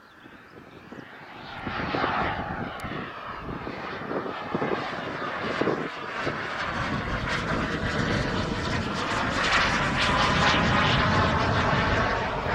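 Turbine engine of a 1:4-scale Yak-130 model jet flying past: a steady rushing jet noise that swells from about two seconds in and is loudest near the end.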